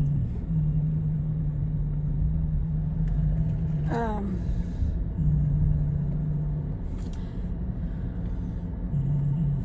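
Car interior while driving: a steady low rumble of engine and road noise. A short falling vocal sound comes about four seconds in.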